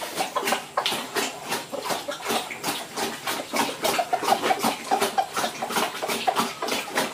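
Noisy, wet eating from a basin: many quick, irregular slurps and smacks, several a second, with a few brief squeaky sounds about four seconds in.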